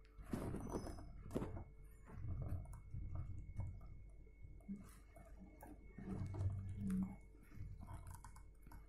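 Faint, irregular clicks, scrapes and light knocks of close-up handling against a kitchen cabinet panel, with two busier patches near the start and about six seconds in.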